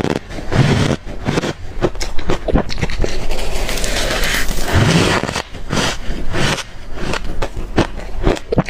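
Close-up chewing of freezer-hard crushed ice: dense, irregular crunches and squeaks as the ice breaks between the teeth, with a few dull thuds.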